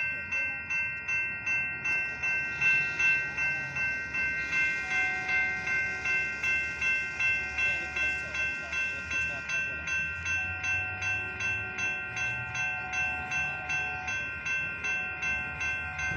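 Railroad grade-crossing bell ringing steadily at about two strokes a second while the crossing is active and the gates come down. A fainter, lower steady tone sounds in three long blasts over the bell, the horn of an approaching train.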